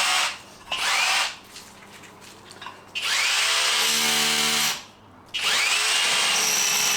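Electric drill running in bursts: two short bursts, then two longer runs, each starting with a rising whine as the motor spins up, with a lower motor hum under load in the third run.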